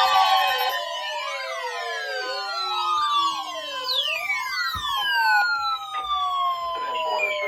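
Several weather alert radios sounding their alarms at once for the weekly warning alarm test: overlapping siren-like sweeps rising and falling about once a second, long falling whoops repeating, and a steady tone underneath.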